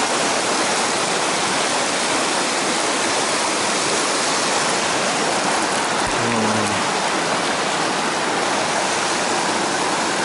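Rushing mountain stream, water pouring over rocks in a steady, unbroken wash.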